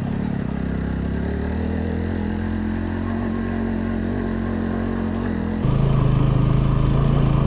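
Motorcycle engine running steadily as the bike rides a rough dirt track, heard from on board. About two-thirds of the way in it suddenly gets louder.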